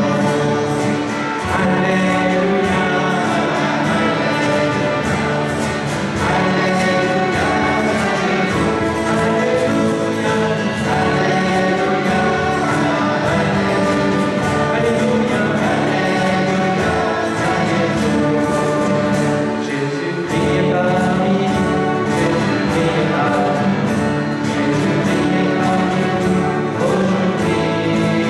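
Church choir singing an alleluia hymn with a small band of trumpet, flute and guitars, over a steady beat.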